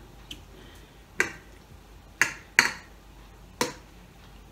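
A metal spoon clinking against a stainless steel bowl while food is scooped out: about five sharp, uneven clinks, the loudest near the middle.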